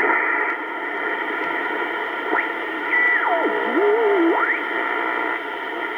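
Kenwood TS-820S shortwave transceiver on the 160-meter band in lower sideband with no antenna connected, giving steady receiver hiss with faint steady whistles through it. About three seconds in, a heterodyne whistle sweeps down from high to low, wavers, and rises back up as the dial is tuned across a signal.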